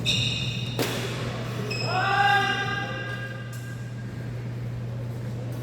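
Badminton play: a sharp racket strike on the shuttlecock about a second in, between high squeals from court shoes, over a steady low hum.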